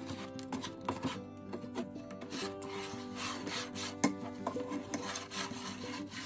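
Wooden spatula scraping and pushing clumps of sugar across a nonstick pan in repeated rasping strokes as the sugar is melted. A single sharp knock comes about four seconds in.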